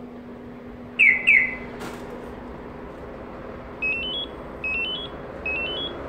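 Magicar remote-start car alarm system sounding its signal tones. Two loud falling chirps come about a second in, with a click just after. From about two-thirds of the way in, a short rising four-note beep figure repeats about once every 0.8 s.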